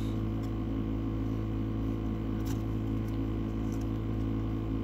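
Baseball trading cards being flipped through by hand: a few faint, light clicks and slides of card stock over a steady low background hum.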